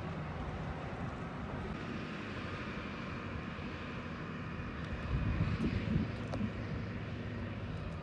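Steady drone of a distant diesel wheel loader with a log grapple, working in the yard.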